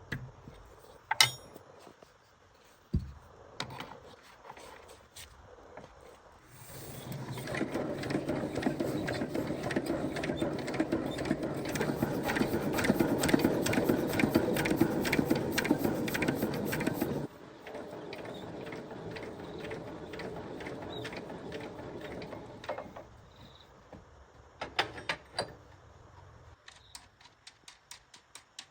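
A small motorised tool runs loudly for about ten seconds with a rapid mechanical chatter, then drops suddenly to a lower, steadier running level for several seconds. Scattered clicks and knocks of parts being handled come before and after.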